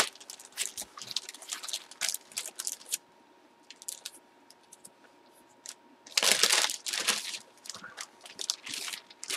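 A clear plastic poly bag holding a baseball jersey crinkling as it is handled, in short spurts over the first few seconds, then quiet, then a louder burst of crinkling about six seconds in.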